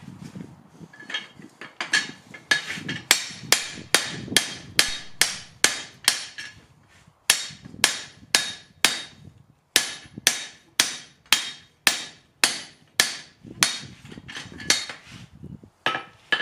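Hand hammer striking the top die of a guillotine tool clamped on a glowing steel billet, a steady run of ringing metal-on-metal blows about two to three a second. Light taps at first, then heavy blows with two short pauses, around seven and nine and a half seconds in.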